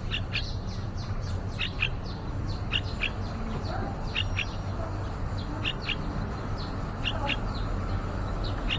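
Yellow-vented bulbuls chirping: short, high, downward-sliding chirps, often in quick pairs, repeated every second or so over a steady low background rumble.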